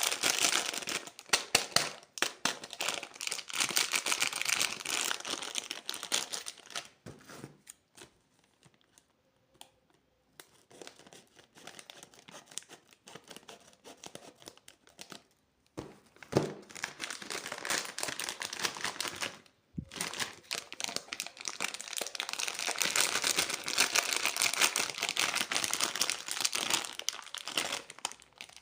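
Candy wrappers and packaging crinkling and tearing as candy is unwrapped, in dense crackling stretches with a quieter pause about a third of the way in.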